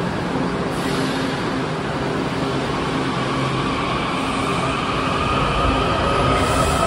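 Washington Metro 7000-series subway train starting to pull out, its rumble growing louder as a motor whine rises slowly in pitch from a few seconds in: the train accelerating away.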